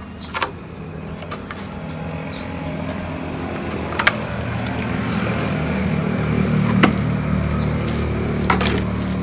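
A low motor hum growing steadily louder, with a few sharp knocks.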